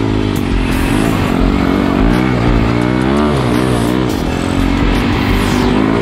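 KTM 450cc single-cylinder four-stroke dirt bike engine in a homemade Power Wheels kart, revving hard with its pitch rising and falling several times as the throttle is worked through the turns.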